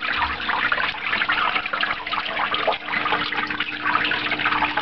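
Water from a small artificial waterfall splashing down over fake rock ledges into a terrarium pool, a continuous splashing trickle. A faint steady hum runs underneath.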